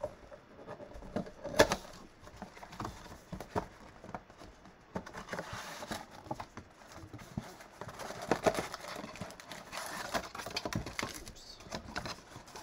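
Cardboard trading-card box being opened by gloved hands and its packs pulled out: scattered clicks, taps and rustling of cardboard and paper, with one sharp snap about a second and a half in.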